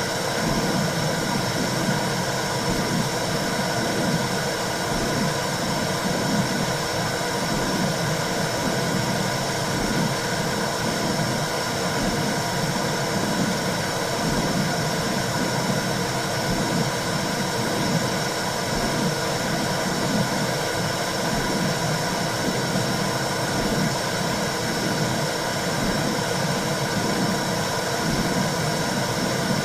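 Womb sound for soothing a baby: a steady whooshing noise with a slow, regular pulsing beneath it, like blood flow and heartbeat heard from inside the womb.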